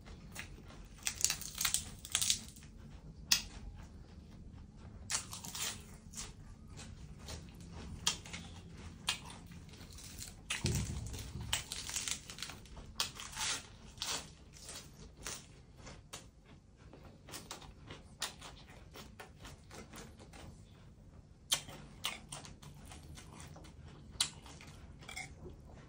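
Close-up eating sounds: crisp lettuce leaves being torn and then crunched and chewed in a lettuce wrap, with irregular crackles and snaps throughout.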